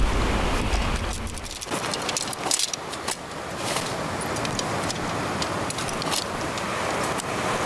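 Segmented metal tent pole sections clicking and rattling as they are unfolded and joined, with the nylon tent rustling. Underneath is a steady rushing hiss, with a low rumble that dies away in the first second or so.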